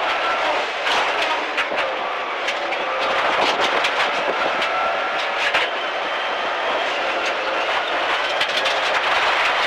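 Subaru Impreza STi Group N rally car's turbocharged flat-four engine pulling hard at speed on gravel, its pitch repeatedly climbing and dropping back as it changes gear. Gravel stones clatter against the underside in sharp ticks throughout.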